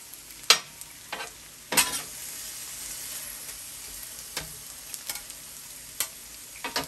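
Chicken and mixed vegetables sizzling on a hot steel flat-top griddle while a metal spatula tosses them, clicking and scraping on the steel every second or so. The sizzle swells about two seconds in.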